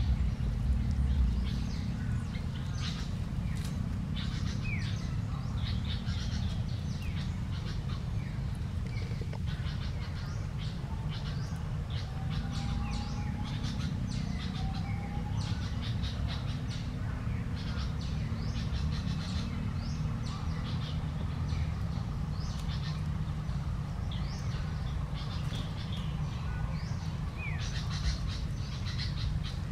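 Birds chirping in many short, quick calls over a steady low rumble, with two short sliding whistles about twelve and fourteen seconds in.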